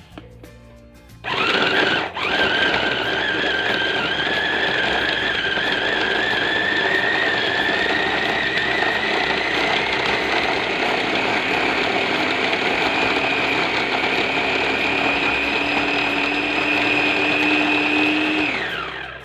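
Oxone OX-272 electric food chopper's motor running while chopping beef, a steady whine that slowly rises in pitch. It starts about a second in, falters briefly just after, and cuts off near the end.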